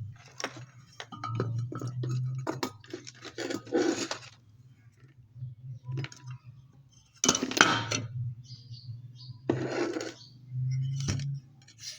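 Small metal parts and tools clinking, tapping and scraping as they are handled, with a low hum that comes and goes.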